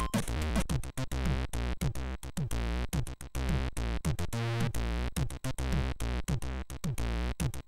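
Commodore 64 SID chip music with a steady beat: blocky bass notes, regular drum hits and quick falling-pitch percussive notes repeating about twice a second.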